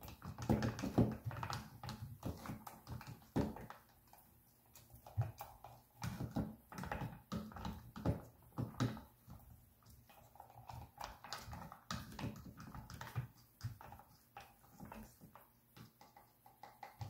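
Irregular clicks and taps of a thin stick stirring glue and paint in a plastic tub, mixed with handling knocks of the tub on a wooden table.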